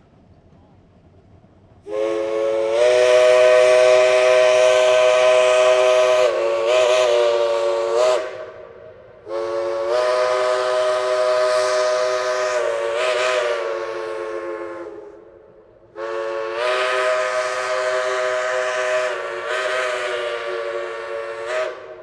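A steam locomotive's chime whistle blows three long blasts of about six seconds each. Each blast sounds several notes at once as a chord, and the pitch wavers briefly near the end of each blast.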